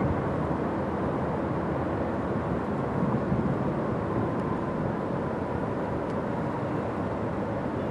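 Steady outdoor rumble of distant engine noise, with no distinct events.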